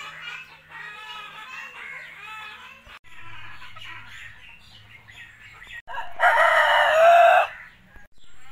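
Native country chickens calling softly and repeatedly, then a rooster crows once loudly, for about a second and a half, its crow dropping in pitch at the end.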